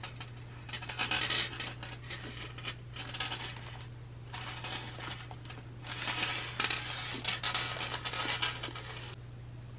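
Plastic packaging crinkling and rustling as it is handled, in irregular bursts that stop about nine seconds in.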